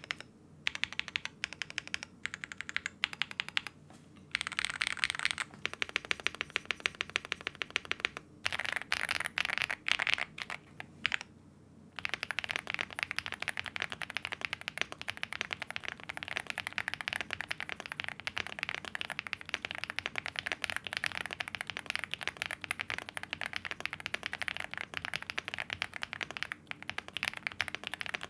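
Fast typing on a Chilkey ND75 mechanical keyboard with Gateron Everfree Dopamine linear switches and double-shot PBT keycaps: dense key clacks. It comes in bursts with short pauses over the first dozen seconds, then runs on as continuous fast typing.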